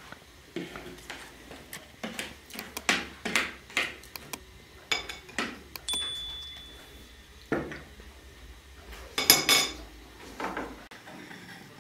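Teaspoons and cutlery clinking against small tea glasses, saucers and plates: a run of light clinks and taps, with one short ringing note about halfway and the loudest cluster of clinks near the end.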